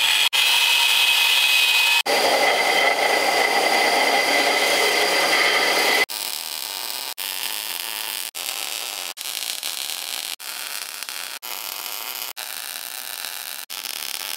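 An angle grinder cuts steel plate with a loud steady whine, stopping briefly twice. From about six seconds in, a MIG welder lays short welds, a steady hissing noise that stops briefly about once a second.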